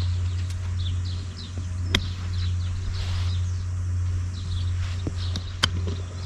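Sharp clicks of golf clubs striking balls, three in all, the loudest about two seconds in and near the end. Short high bird chirps repeat over a steady low hum.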